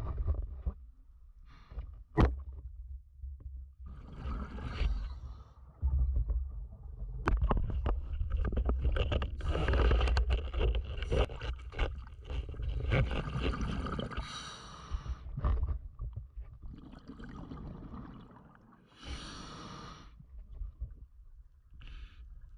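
Water sloshing and gurgling over a steady low rumble, with scattered knocks and clicks.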